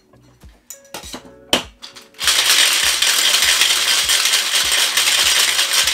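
A few clinks of ice cubes going into a metal cocktail shaker tin, then from about two seconds in a loud, continuous rattle of ice being shaken inside the closed shaker to chill it.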